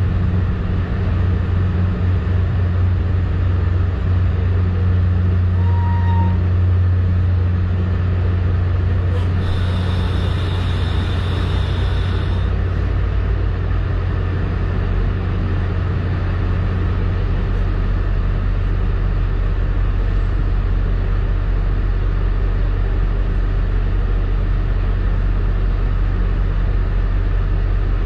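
Steady low hum inside a commuter rail coach standing at a platform. About ten seconds in comes a hiss of air lasting about three seconds.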